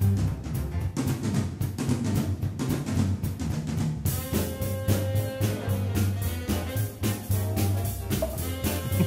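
Background music with a steady drum beat and held instrument notes, moving into a brighter section about four seconds in.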